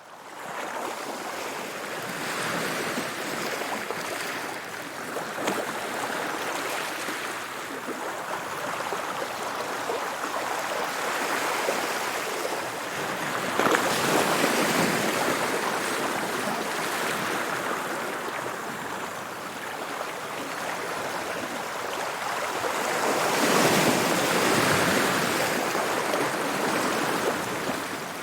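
Sea waves washing onto the shore in a continuous rush. Two larger waves break, one about halfway through and one near the end.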